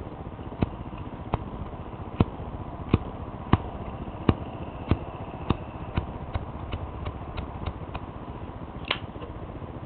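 Zippo lighter's flint wheel struck again and again without lighting: sharp clicks about every two-thirds of a second for the first half, then lighter, quicker clicks. It is failing to light, which the owner puts down to how the wick was put in.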